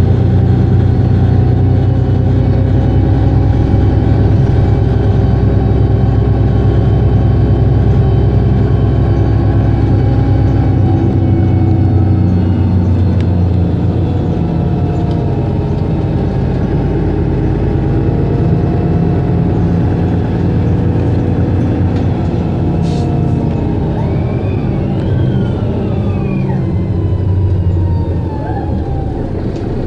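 Mercedes-Benz Citaro (O530) city bus diesel engine idling steadily while the bus stands at a stop; the deepest part of the rumble changes about ten seconds in and the sound eases slightly after.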